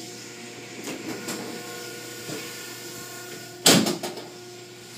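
Automatic car wash machinery running: a steady mechanical hum under spraying water, with scattered knocks and one loud sudden bang a little before four seconds in.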